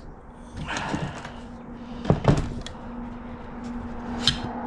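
Knocks and clunks from a hand-cranked copper wire stripper as wire is forced through it, catching on a bump in the wire. Two heavy knocks come a little after two seconds in, and a steady low hum starts just before them and carries on.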